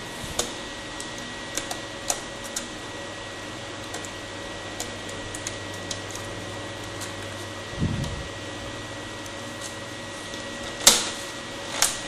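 Small plastic clicks and taps as a Dell Vostro 3550 laptop keyboard is worked out of its retaining notches. A dull thump comes about eight seconds in, and two louder sharp snaps near the end as the keyboard comes free. A steady hum runs underneath.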